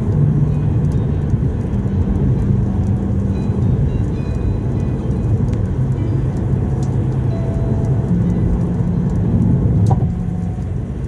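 Car cabin noise at motorway speed, a steady rumble of tyres and engine, with music playing over it: held low bass notes that change pitch every second or two.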